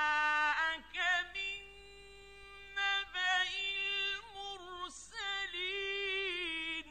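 A male Quran reciter chanting in the melodic mujawwad style: a high voice holding long, steady notes that break into wavering ornamented runs, with short pauses between phrases. The voice stops suddenly near the end.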